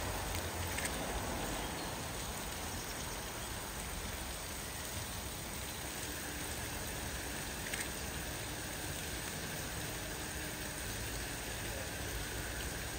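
Steady rushing hiss of BR Standard Class 4 tank locomotive 80136 taking water: water from the column pouring into its tank while steam escapes around the engine.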